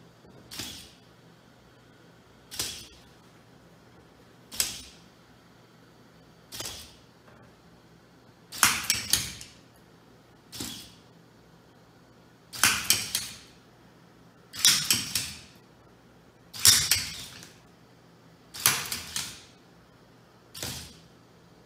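Small biped humanoid robot's servo motors whirring and its feet tapping on a tile floor, in bursts about every two seconds. At first each burst is short, as the robot turns right on the spot; from about eight seconds in the bursts are longer and hold several taps, as it walks forward. A steady low hum runs underneath.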